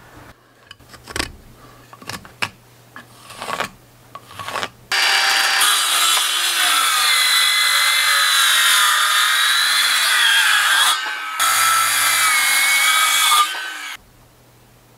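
Faint pencil scratching and light knocks on wood, then a Ryobi cordless circular saw cutting shallow crosscuts into a log, running in two long runs with a brief break between them, its whine wavering in pitch as the blade bites.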